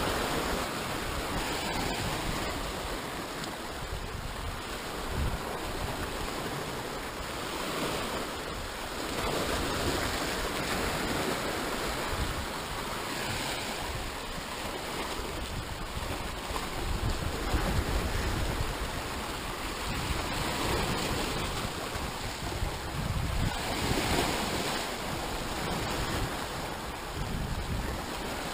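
Sea surf washing over rocks at the water's edge, swelling and ebbing every few seconds.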